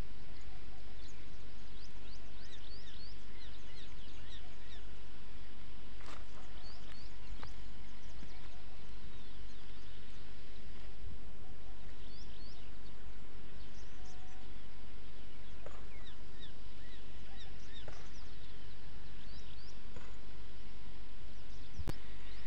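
Outdoor ambience: a steady low rumble of background noise, with small birds chirping in short high notes throughout and a few faint clicks.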